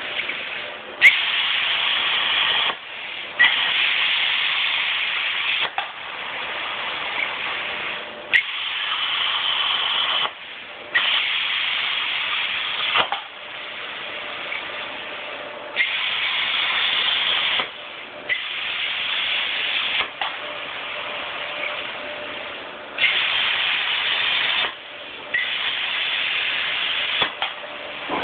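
CNC plasma cutter torch cutting steel plate: a loud, even hiss of the cutting arc lasting about two seconds per cut, each cut mostly starting with a sharp click as the arc strikes. It repeats about nine times, with quieter hiss in the short gaps between cuts.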